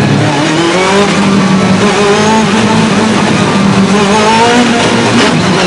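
Ferrari 430 GT2 race car's V8 engine heard from inside the cockpit, running hard under racing acceleration. Its pitch rises and drops back several times as it goes through the gears.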